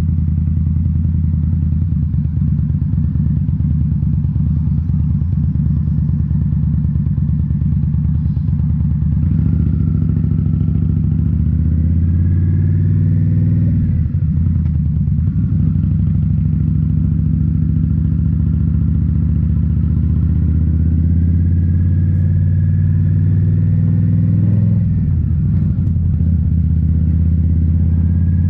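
2018 Indian Scout Bobber's V-twin engine running through Rinehart slip-on mufflers while riding, a steady deep exhaust note whose pitch drops and climbs again twice, about halfway through and near the end.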